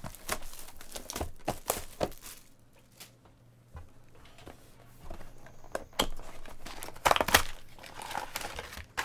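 Plastic wrap and cardboard of a sealed box of trading cards crinkling and tearing as it is ripped open, with the loudest rips about six and seven seconds in.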